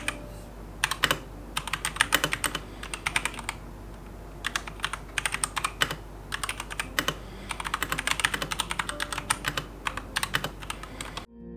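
Typing on a Keychron K2 V2 mechanical keyboard with Gateron Brown switches: quick runs of keystrokes separated by short pauses. It cuts off suddenly just before the end, where music comes in.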